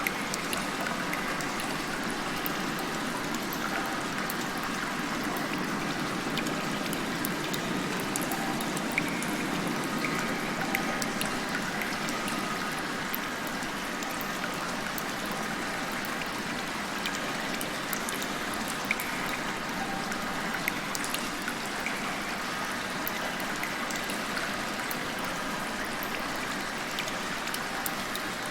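Rain heard from inside a cave: a steady wash of falling and trickling water, with scattered sharp drips of single drops.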